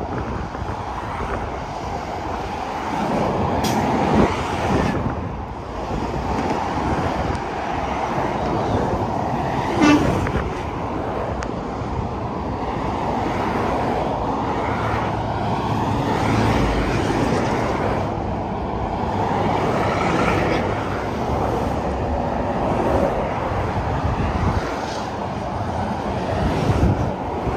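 Interstate highway traffic: semi trucks and cars passing at speed, their tyre and engine noise swelling and fading as each goes by. A short sharp click about ten seconds in.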